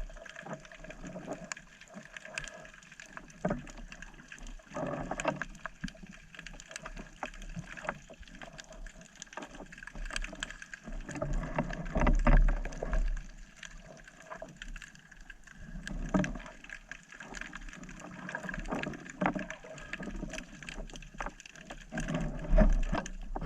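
Water sloshing and gurgling in uneven surges, with scattered small clicks and knocks.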